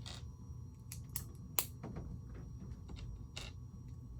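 Small plastic Lego pieces clicking as they are handled and pressed together: a scattering of short clicks, one sharper than the rest about a second and a half in, over a low steady hum.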